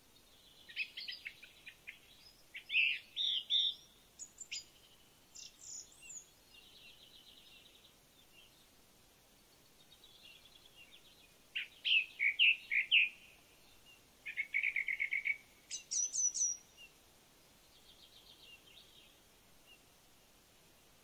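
Songbirds calling and singing in short bursts of quick chirps and rapid trills. There is one busy spell in the first few seconds and another a little past the middle, with quieter gaps between them.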